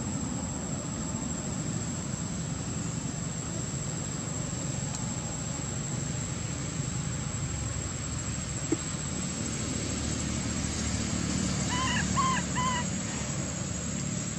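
Baby long-tailed macaque giving three short, quick whimpering squeaks about twelve seconds in, over steady outdoor background with a thin high insect whine.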